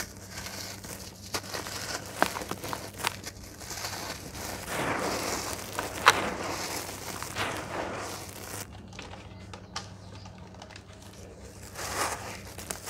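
Hands crumbling and sifting dry red clay powder and lumps: a gritty crunching and soft hiss of falling dust, dotted with small crackles and one sharp crack about six seconds in.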